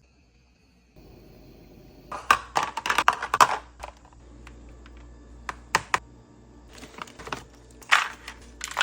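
Clatter of kitchen items being handled on a counter: groups of sharp clicks and knocks, the loudest about two to three seconds in and again near the end.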